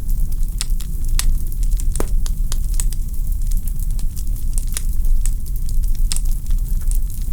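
Log fire in a fireplace crackling: irregular sharp pops and snaps over a steady low rumble of the flames, with one louder pop about two seconds in.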